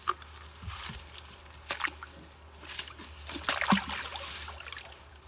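Irregular rustling, crackling and squelching as a person pushes through leafy undergrowth at a pond's edge, loudest about three and a half seconds in, over a low steady hum.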